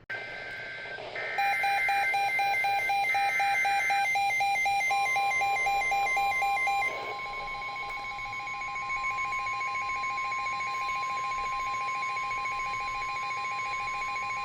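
NOAA Weather Radio alert: about three short warbling data bursts of the SAME digital header, then the steady 1050 Hz warning alarm tone held for about ten seconds, announcing a severe thunderstorm warning. Under it runs a rapid pulsed alarm beeping, which drops in volume about halfway through.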